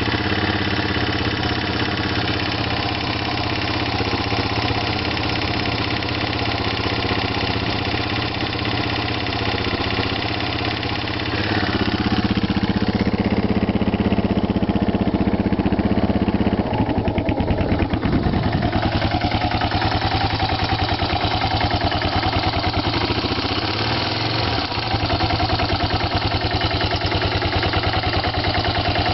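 Yamaha TT600 single-cylinder four-stroke motorcycle engine running at idle, with a sound the owner calls bad. About twelve seconds in the note grows louder, and from about seventeen seconds in it settles into an evenly pulsing idle.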